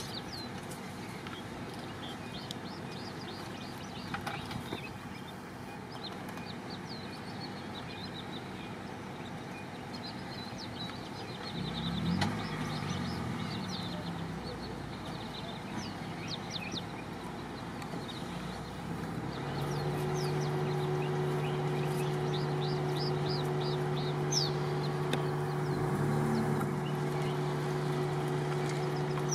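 Clusters of short, high chirps: the bird-like twittering of an African wild dog pack. About two-thirds of the way in, a vehicle engine starts idling with a steady low hum.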